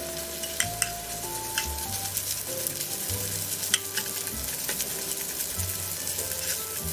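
Rice and beaten egg sizzling in a hot oiled pan while a wooden spatula stirs and scrapes them, with scattered sharp ticks through the steady frying hiss.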